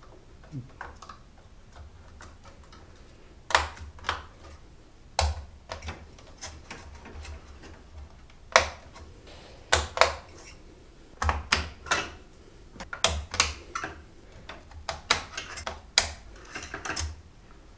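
DDR4 ECC server memory modules being pressed into motherboard DIMM slots, the slot latches snapping shut with a series of sharp plastic clicks at irregular intervals, a few of them louder.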